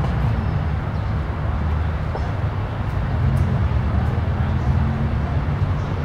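Steady low rumble of outdoor background noise, with no distinct events standing out.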